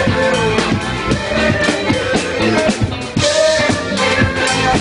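Live party band playing upbeat funk and soul dance music, with a drum kit keeping a steady beat under the other instruments.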